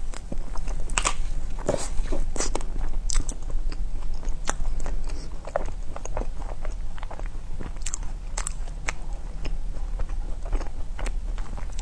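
Close-miked bites into a frozen ice pop: irregular, crisp crunching cracks as the ice breaks, with chewing in between.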